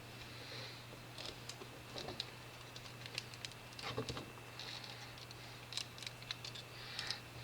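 Faint, scattered light clicks and taps of tiny screws, a screwdriver and small model parts being handled on a workbench, with a few brief rustles.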